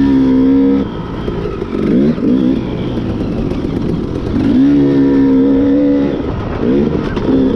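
Dirt bike engine revving under way, held at high revs for a second or so twice, with quick rises and drops in pitch between as the throttle opens and closes.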